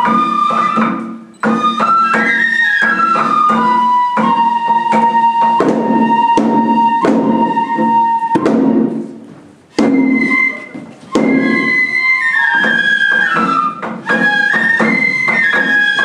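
Folk lion-dance music: a Japanese transverse flute plays a melody, sometimes holding a long note, over drum beats struck by the dancers. The music drops away briefly a few times between phrases.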